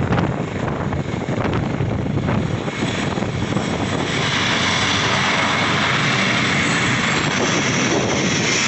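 A helicopter on the ground with its rotors turning, giving a steady engine-and-rotor noise. For the first few seconds its downwash buffets the microphone, and from about four seconds in the sound grows steadier and louder with more hiss.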